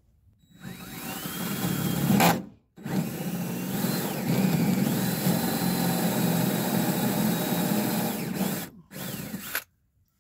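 Cordless drill boring up through the keel flange's bolt holes into the hull bottom, re-drilling the holes that were filled with thickened epoxy. The motor winds up with a rising whine, stops briefly about two seconds in, runs steadily for about six seconds, then gives one short last burst.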